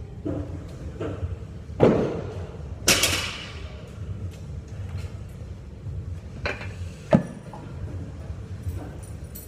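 A 70 kg loaded barbell is set down on the floor during deadlift reps. There is a knock about two seconds in, then a louder metallic clank of the plates that rings on. Two more knocks come about six and a half and seven seconds in.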